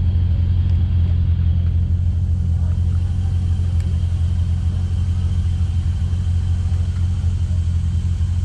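Nissan GQ Patrol comp truck's turbocharged TB42 straight-six idling steadily, a deep, even drone.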